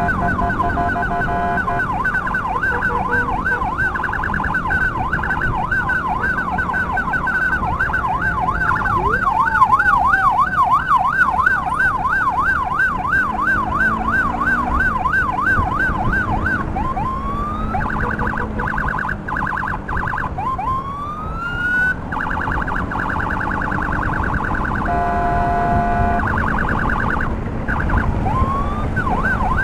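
Electronic emergency siren sounding loudly, a fast up-and-down warble that switches modes about halfway through to rising sweeps and a rapid pulsing tone, then returns to the warble near the end. Low wind and road noise runs underneath.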